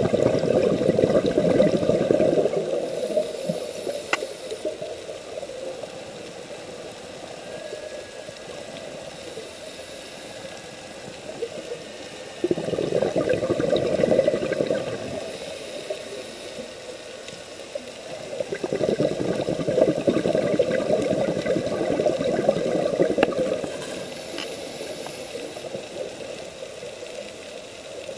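Scuba diver's breathing heard underwater. Three long gushes of exhaled bubbles come at the start, about halfway through and about two-thirds of the way through, and each is followed by a short, high regulator hiss on the in-breath, with quieter water noise between.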